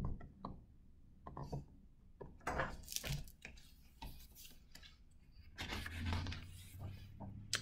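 Pages of a large hardcover picture book being turned and the book handled on the table: scattered soft paper rustles and light knocks, in a few short clusters.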